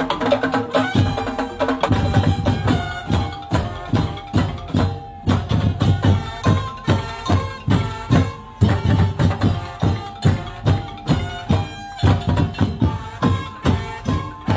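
Traditional music with drums and other percussion keeping a steady beat of strong low strokes, under a held melodic line.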